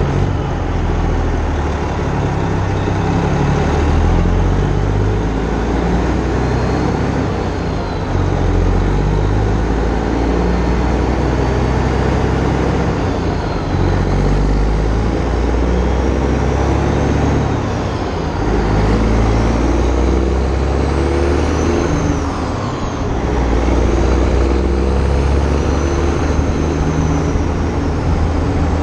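Freightliner Classic semi truck's Detroit diesel engine pulling down the highway, heard from outside the cab, its pitch stepping up and dropping back several times.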